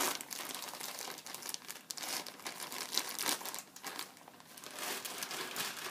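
Crinkly packaging being handled and rummaged through, with continuous irregular crinkling and rustling.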